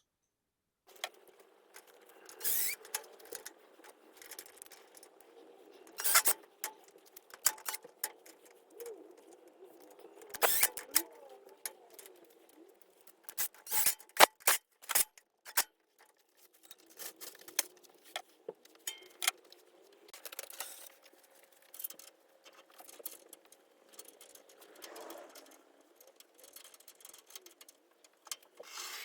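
Workshop handling noise: irregular sharp clicks, knocks and light metallic clatter of tools and hardware being handled while castor wheels are fitted to a wood lathe.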